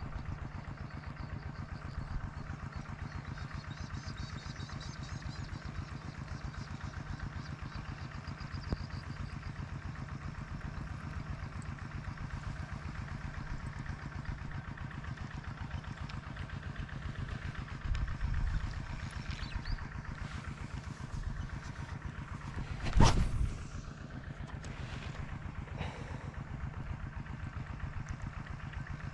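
A small engine running steadily with an even, fast throb, swelling briefly about two-thirds of the way through. A single sharp knock sounds a little later and is the loudest thing heard.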